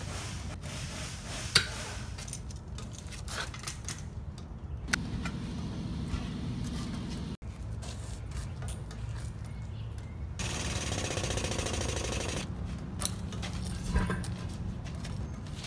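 Tire-changing work on a loader wheel: scattered metal clinks and knocks from tools on the steel rim, and about two seconds of rushing air from an air hose starting about ten seconds in, over a steady low rumble.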